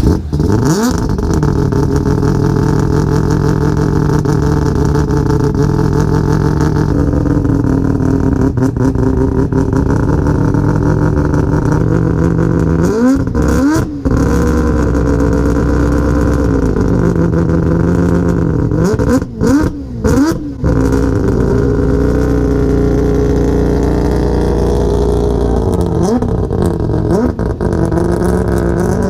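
A car engine running under way at a steady pitch, with two gear changes about halfway through and a little later, where the note drops briefly and then climbs again.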